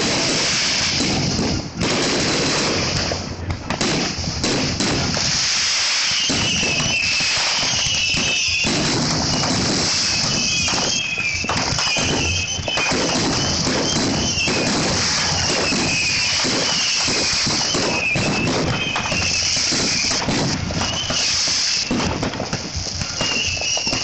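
Fireworks display: a continuous run of bangs and crackling from bursting shells. From about six seconds in, a high wavering sound comes and goes over it.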